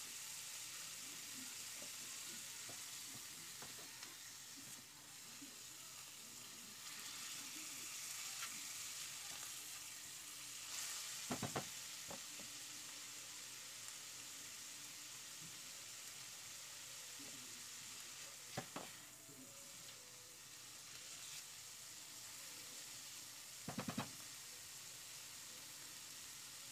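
Canned mushrooms, garlic and onion sautéing in oil in a frying pan: a faint, steady sizzle. A few short knocks of stirring against the pan stand out, three times.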